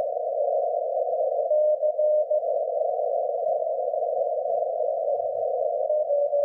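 SunSDR2 DX transceiver's receive audio in CW mode through a narrow filter: a steady band of hiss, with a weak Morse code tone keying faintly through it about a second and a half in and again near the end. The signals are pretty weak, with band conditions fading.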